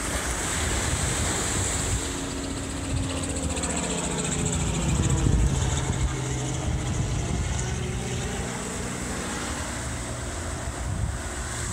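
Helicopter flying over, a steady engine and rotor drone that grows to its loudest about five seconds in and then eases off.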